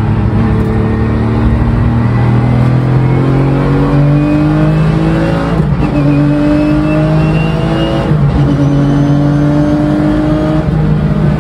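Porsche 911 (996) Cup's flat-six engine, heard from inside the cabin, pulling hard through the gears. The pitch climbs, drops with an upshift about halfway through, climbs again and drops with a second upshift soon after, then climbs once more.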